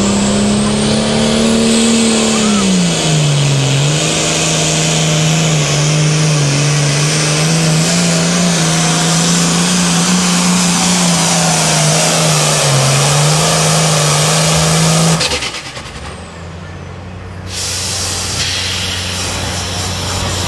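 Diesel engine of a Hot Farm pulling tractor running flat out under load as it drags the sled, its pitch sagging a little about three seconds in and dipping now and then. About fifteen seconds in the sound cuts abruptly to a second pulling tractor idling, lower and quieter.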